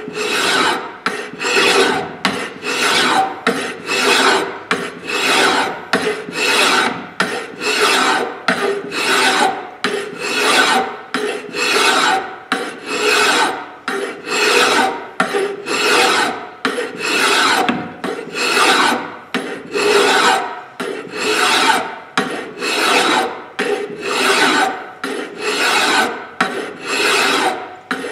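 Heavy hand file rasping across the steel poll of a hatchet head held in a vise, in steady push strokes about one a second. This is the coarse flattening of the poll ahead of a finer file.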